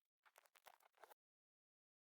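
Near silence: a very faint crackly hiss that cuts off to total silence a little after a second in.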